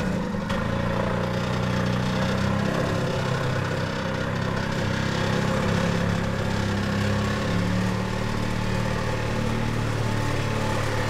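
Golf cart engine running steadily under load as it tows a pickup, its pitch shifting a little.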